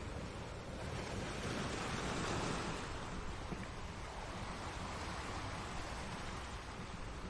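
Ocean surf washing on a shore: a steady rush of waves that swells to a peak about two seconds in and falls back, with a smaller swell a little later.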